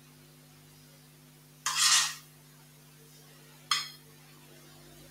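Metal spoon against dishware: a half-second scrape just under two seconds in, then a single sharp clink near four seconds, while dots of purée are spooned onto a ceramic plate.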